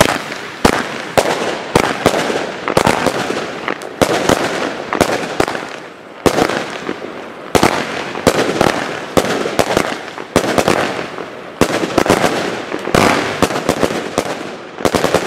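Argento Color Thunder firework battery firing: a rapid, irregular string of loud shots and bangs with crackling between them. It starts suddenly and stops after about fifteen seconds.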